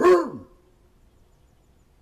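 A dog gives one short, loud bark right at the start that slides down in pitch as it fades. The owner takes the barking to be at the thunder.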